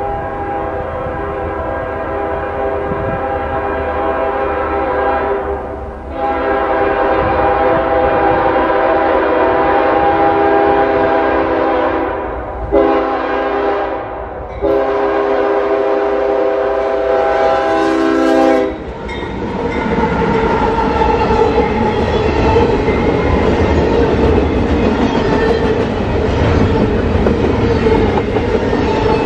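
A CSX freight locomotive's multi-chime air horn sounds the grade-crossing signal: two long blasts, a short one, then a final long one. After that, double-stack intermodal cars roll past with a steady rumble and clickety-clack of wheels on the rails.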